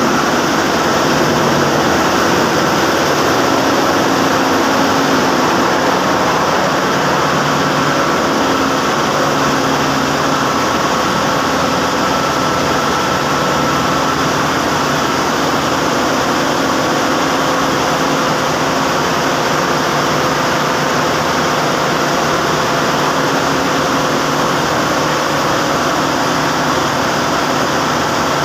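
Machinery of a tin-sand suction dredge ship running steadily at sea: a loud, unbroken engine drone with a few faint steady tones in it.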